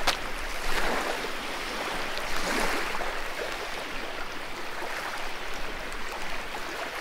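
Small waves washing and lapping at a shoreline: a steady rush of water that swells slightly a couple of times.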